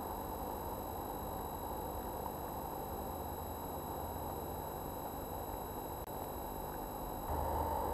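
Steady hiss and low hum with faint thin high whines, getting a little louder near the end; no distinct event stands out.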